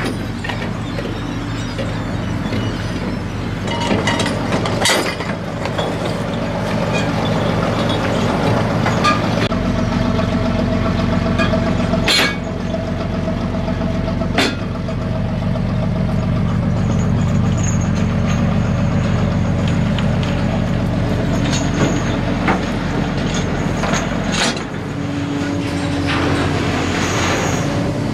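Trawler engine and net-hauling deck machinery running with a steady low drone, with a few sharp clanks now and then.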